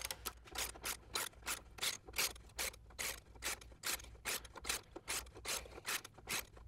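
Hand ratchet swung in short, quick strokes, about three a second, each back-swing a brief rasp of pawl clicks. It is driving a socket on a wobble extension to tighten a rivet nut into a car frame rail.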